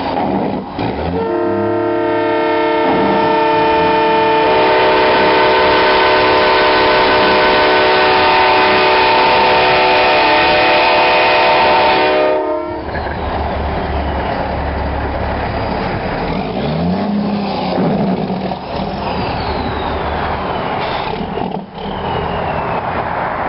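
Truck-mounted train horn blowing a long multi-note chord for about eleven seconds, its notes coming in one after another, then cutting off suddenly. Engine rumble and traffic noise follow.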